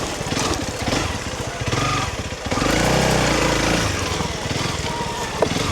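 Honda CRF300 Rally's single-cylinder four-stroke engine running under way on a trail. About two and a half seconds in it is opened up, its pitch rising and then falling again.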